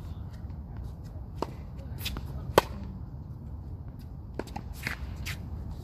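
Tennis ball struck back and forth in a rally: sharp pops of ball on racquet strings, the loudest about two and a half seconds in, with fainter hits and bounces from across the court.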